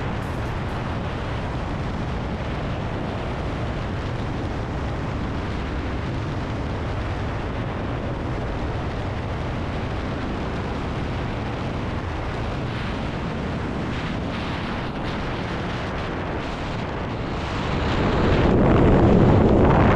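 Steady rush of freefall wind buffeting the camera's microphone during a tandem skydive, growing louder near the end as the main parachute opens.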